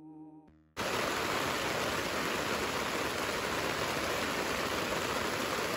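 Steady rain falling on a tent, an even hiss that cuts in suddenly under a second in as soft ambient music ends.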